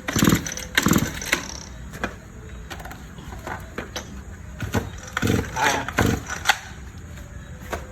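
Small petrol engine's recoil starter pulled sharply four times, in two pairs, without the engine catching, with a few knocks of handling in between.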